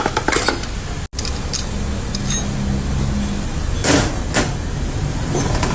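Scattered metallic clinks and knocks from work in a car repair workshop, over a steady low rumble.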